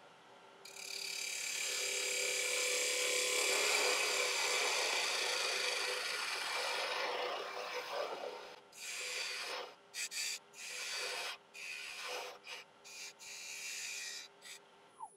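Turning tool cutting a spinning ash peppermill blank on a wood lathe, shaping the top. It makes one steady shaving hiss for about seven seconds, then a run of short cuts with brief pauses between them.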